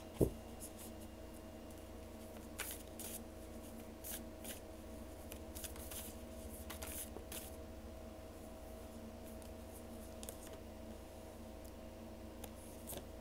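A large deck of tarot cards being shuffled and handled: soft rustles and card-edge snaps at irregular intervals. A low thump comes right at the start, and a faint steady hum runs underneath.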